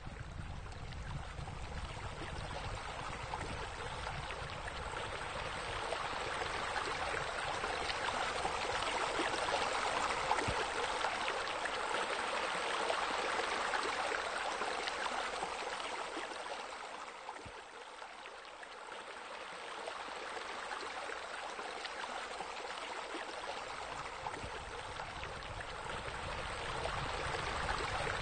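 Steady running, trickling water that slowly swells and fades, dipping noticeably about two-thirds of the way through.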